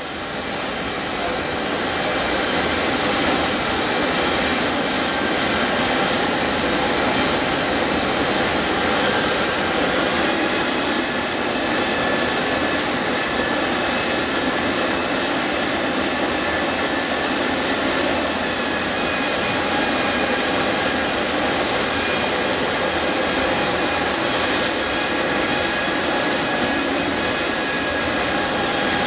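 Jet engine of the Turbonator jet-powered Mini running steadily after a good start: a high whine over a steady rush. The sound comes up over the first two seconds; the whine steps up slightly about ten seconds in, eases back a little near twenty seconds and begins to climb at the very end.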